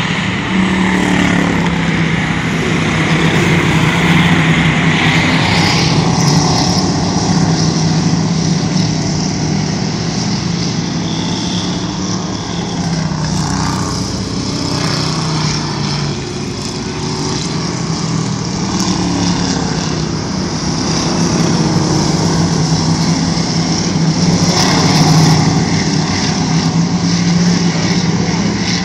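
Dirt-track race cars running laps on a clay oval: a steady, loud engine drone that rises and falls as the cars come round, swelling a few seconds in and again near the end.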